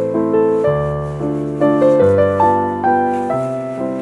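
Background piano music: struck notes over a bass line that changes about once a second.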